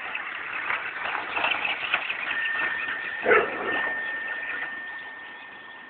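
Toy remote-control car's small electric motor whining steadily, starting a bit over two seconds in, over a rustling, scuffling background. A single short dog bark about three seconds in is the loudest sound.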